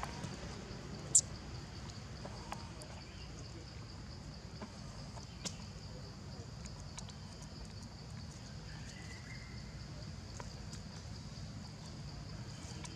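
Steady outdoor background with an even high-pitched drone and a low hum. A sharp high click about a second in is the loudest sound, followed by a few faint scattered ticks.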